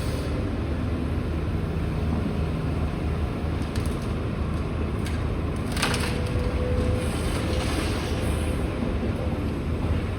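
Demolition excavator working on a brick house: a steady engine rumble with a thin hydraulic whine, and timber and masonry cracking and crunching, loudest about six seconds in.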